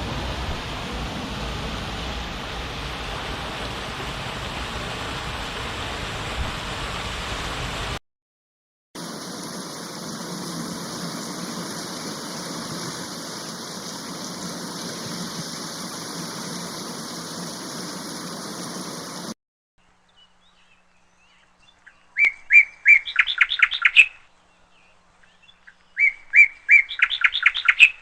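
Steady rushing water, broken once by a second-long gap, stops about two-thirds of the way in. After a short quiet, a songbird sings two quick trilled phrases of rapid high chirps.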